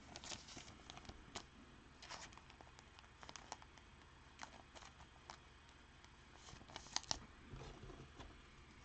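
Near silence with faint light clicks and rustles of trading cards and plastic sleeves being handled on a table, with a few sharper ticks about seven seconds in.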